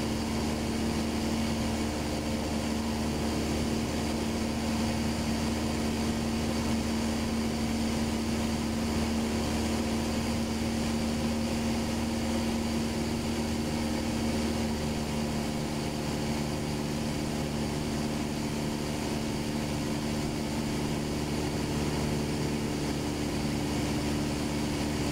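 A Cessna's piston engine and propeller droning steadily in level cruise, heard from inside the cockpit. About two-thirds of the way through the tone of the drone shifts slightly, with a new lower hum joining in.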